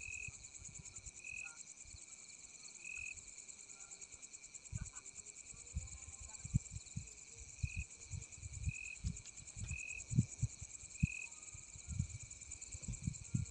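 Night insects: a steady high-pitched cricket trill, with a lower short chirp repeating about once a second and dropping out for a few seconds mid-way. Irregular low thuds sound under it, most often in the second half.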